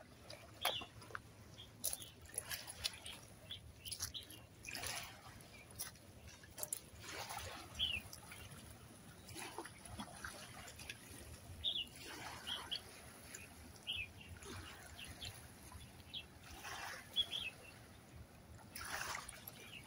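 Small waves lapping and washing against rocks and pebbles at the water's edge in irregular, quiet splashes, with a few short bird chirps scattered through.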